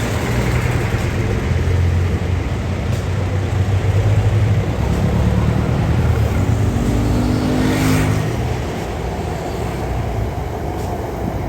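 Road traffic: a heavy vehicle's engine rumbling close by. About seven seconds in the engine note rises as it pulls away, and the rumble then eases off.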